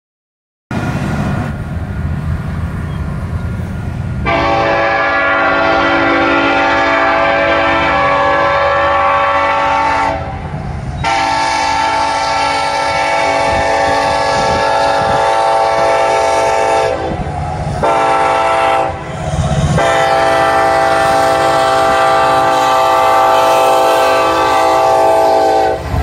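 Nathan K5LLA five-chime air horn on a Union Pacific locomotive sounding three long blasts at a grade crossing, starting about 4, 11 and 20 seconds in, over a low rumble.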